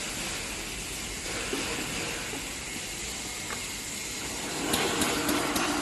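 SL-SBZB450D chocolate-candy packaging machine running: a steady mechanical hiss and whir from the conveyor and feed section. About three-quarters of the way through it grows louder, with rapid irregular clicking.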